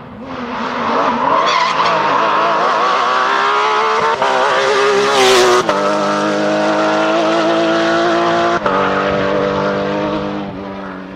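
Porsche rally car at full throttle, its engine note climbing through the gears with brief breaks at the shifts about four, five and a half and eight and a half seconds in. A short hissing burst comes about five seconds in, and the sound falls away near the end as the car goes past.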